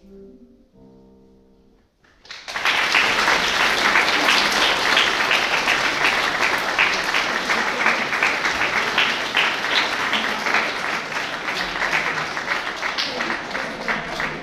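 A few sustained piano notes die away, then about two seconds in an audience breaks into loud, steady applause that carries on throughout.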